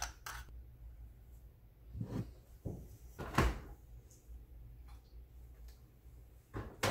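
Quiet kitchen handling sounds: a spoon clicking against a glass jar briefly at the start, then a few knocks and thuds, the loudest about three and a half seconds in, as a refrigerator door is opened and closed.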